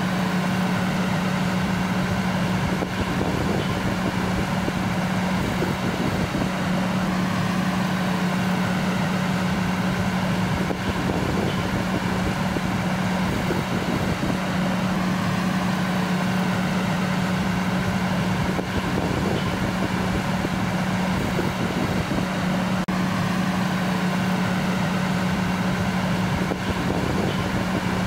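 Fire engine idling: a steady, unbroken engine hum.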